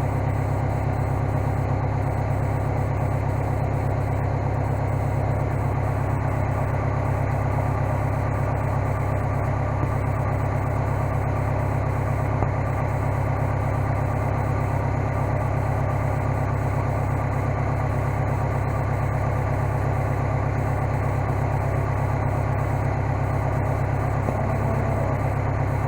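Case skid steer engine idling steadily, an even low hum.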